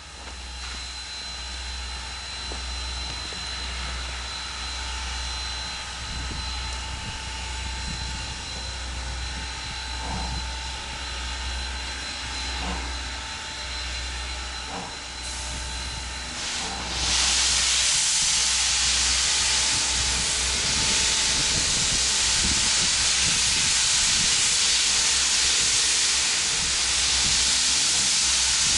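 Norfolk & Western 4-8-0 steam locomotive No. 475 working slowly, first with a low pulsing rumble and faint hiss; about 17 seconds in, a loud steady hiss of steam blowing from its open cylinder cocks takes over and holds.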